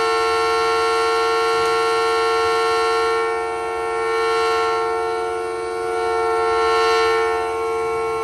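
3D-printed miniature Federal Signal Thunderbolt 1003 siren sounding at full speed, holding a steady pitch of several tones at once. Its horn rotates on a newly printed rotator box, so the sound dips in the middle and swells again as the horn turns.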